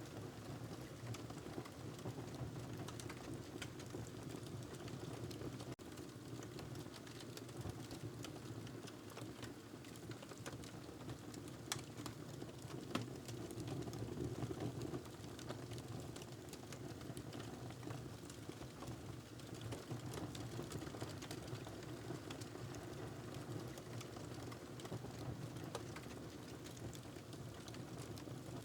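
Wood fire crackling in a fireplace: scattered small pops over a steady low rumble, with a couple of sharper pops about halfway through.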